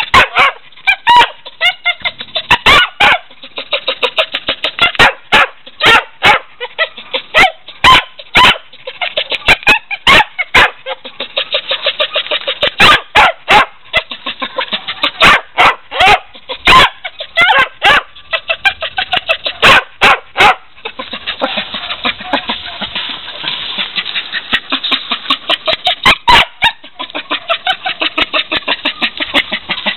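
Several kennelled dogs barking: loud, sharp barks in irregular quick succession over a constant din of overlapping barking.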